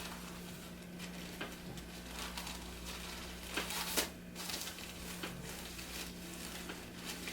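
Soft rustling and handling noise of clothing and the treatment table as a chiropractic patient is positioned, with a sharp click just before four seconds in, the loudest sound, over a steady low hum.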